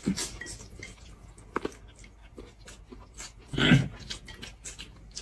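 A person eating buckwheat noodles up close: wet slurps, chewing and small mouth smacks and clicks, with one louder slurp about three and a half seconds in.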